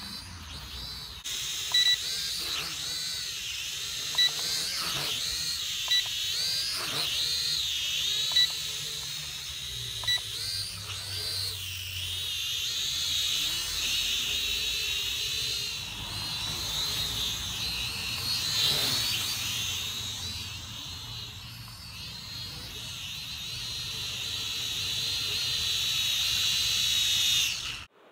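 Small electric motors and propellers of an SKRC Q16 toy quadcopter whining, the pitch wavering up and down as the throttle changes. Short beeps repeat about every two seconds through the first ten seconds or so, and the sound cuts off suddenly near the end.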